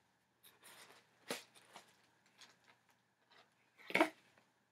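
Cardboard mailer box and its paper contents being handled: scattered light rustles and clicks, with a louder knock about four seconds in.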